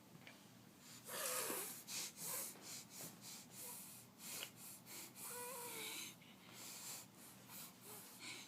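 Repeated sniffles and snorts through the nose, a quick run of short noisy breaths, some with a squeaky wheeze. The first, about a second in, is the loudest.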